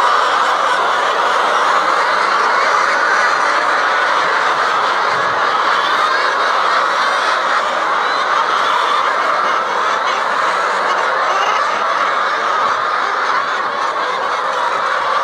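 A large flock of chickens in a poultry house, their clucking and calling blending into a steady, continuous din.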